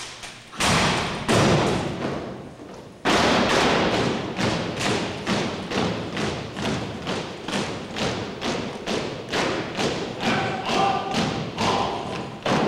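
Drill team stamping their feet in unison on a gym floor, a sharp thud about twice a second, each echoing in the hall. Before the marching begins, a few separate heavy thuds.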